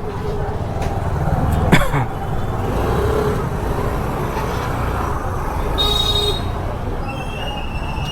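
Road traffic noise with vehicle engines running. There is a brief sharp sound about two seconds in and a short high-pitched tone around six seconds.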